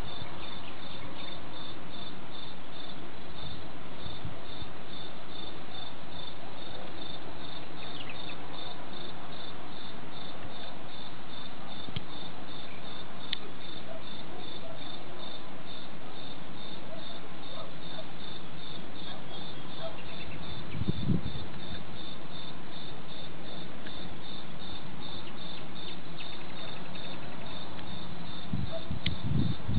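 Crickets chirping steadily, about three chirps a second, over a constant hiss. About two-thirds of the way through, a short low rumble of distant thunder.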